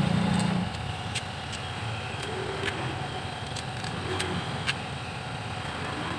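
Scattered light metallic clicks and taps, about eight spread irregularly, from bolts being fitted to a Honda Scoopy's CVT cover, over a steady background hum.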